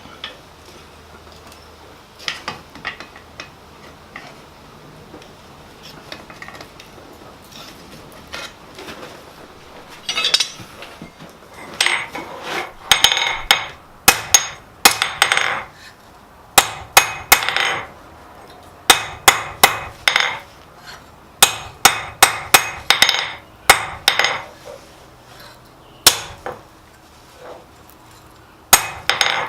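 Blacksmith's hammer striking a length of coil-spring steel on the anvil to straighten it and draw down one end. A few light taps come first, then from about a third of the way in, runs of quick, loud blows with short pauses between.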